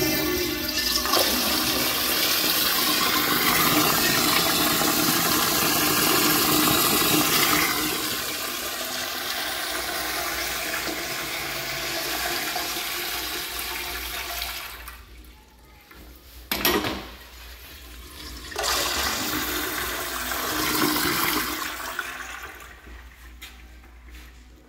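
Commercial toilet with a chrome manual flushometer valve flushing: a loud, steady rush of water through the bowl that eases off after about 8 seconds and stops around 14 seconds in. A sharp knock follows a couple of seconds later, then a shorter rush of water that fades away.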